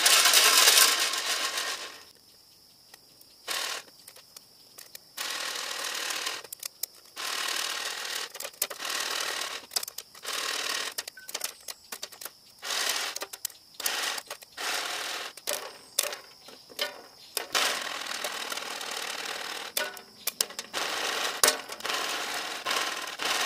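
Popcorn kernels rattling inside a metal campfire popcorn popper as it is shaken over the fire, in repeated bursts of a second or two, with sharp pops of kernels bursting between the shakes.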